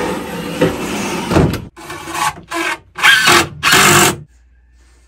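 Power drill driving screws into a wooden frame: a steady run first, then four short loud bursts of the motor, stopping a little after four seconds in.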